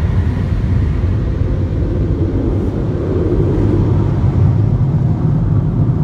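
Car wash machinery heard from inside the car's cabin: a loud, steady rumble and rush.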